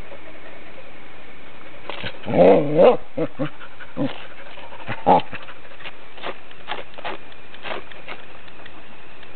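Excited dogs giving a few short whining yelps, loudest about two seconds in, then briefer, fainter ones. A steady hiss lies under them.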